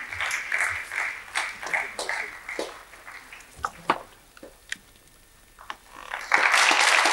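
Audience applauding, dying down to a few scattered claps and a short lull, then breaking out again suddenly and loudly about six seconds in.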